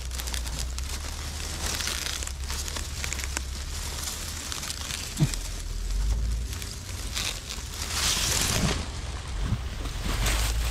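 Rustling and crackling of dry leaves and a trap's cover bag being handled, over wind rumbling on the microphone, with one sharp knock about halfway through.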